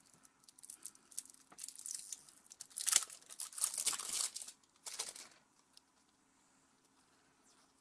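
Cellophane wrapper on a sealed deck of playing cards crinkling and tearing as fingers pick it open, in a run of rustles that stops about five and a half seconds in.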